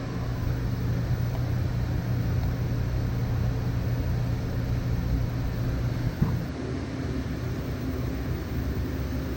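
Steady mechanical hum of a running motor, with a short click about six seconds in, after which the deepest part of the hum drops away.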